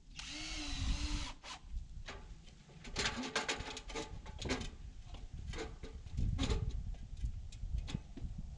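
Aluminium extension ladder clanking and rattling as a man climbs its rungs, in a run of sharp knocks and a few heavier thuds. Near the start comes a brief noisy burst about a second long.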